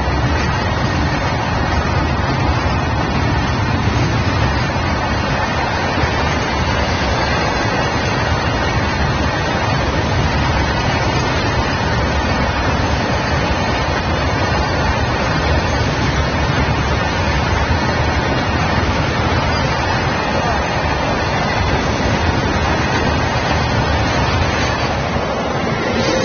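Long freight train of BOXN open wagons rolling past close by at speed: a steady, loud rumble of steel wheels on the rails.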